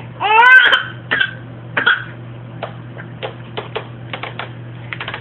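A small child's high-pitched vocal cry rising in pitch, then two short sharp catches in the throat like hiccups, followed by a run of quick, quieter clicks.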